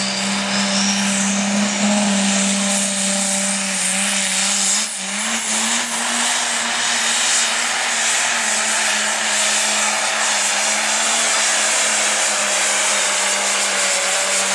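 Turbocharged diesel light pro stock pulling tractor running flat out under load as it drags the sled. The engine note holds steady and loud, with a brief dip about five seconds in, and a high whistle climbs over the first few seconds as the turbo spools.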